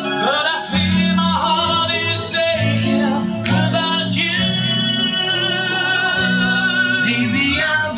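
A recorded pop ballad played back through a home stereo amplifier and speakers: a singing voice holds long notes over guitar and bass, with one sustained note in the middle.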